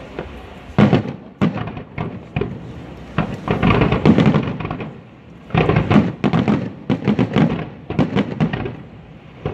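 Aerial fireworks shells bursting in a fast, irregular series of bangs, some single and some in dense rattling clusters.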